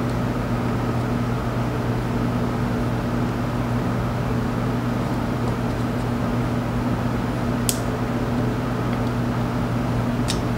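Steady, even machine hum with a low drone and hiss, like a running fan or motor in the workshop. Two sharp clicks break through, one about three-quarters of the way in and one near the end, while circlip pliers work a circlip on the overdrive's clutch assembly.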